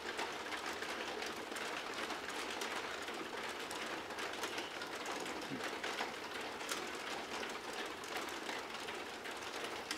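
Mahjong tiles clicking faintly and irregularly as they are drawn and discarded on the table, over a steady background hiss.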